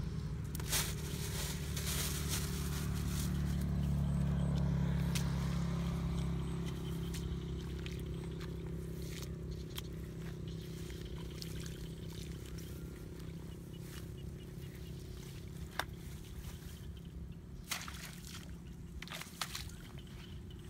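A steady low engine drone, loudest about four seconds in and then slowly fading away, with a few sharp clicks near the end.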